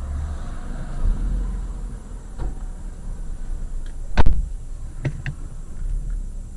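Car driving slowly over a slushy road, heard from inside the cabin as a steady low rumble, with one sharp knock about four seconds in and two fainter clicks about a second later.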